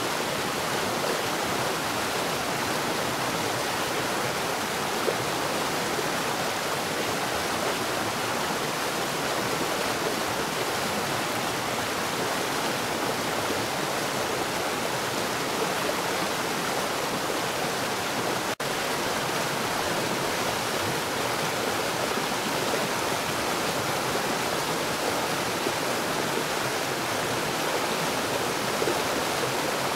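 Water falling fast underground: a steady, continuous rush and splash, with a split-second break a little past the middle.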